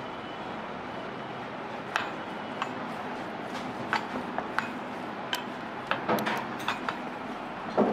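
Utensils clinking and tapping at a street-food stall's counter: scattered sharp clicks, more of them in the second half, over a steady background hiss of the busy stall.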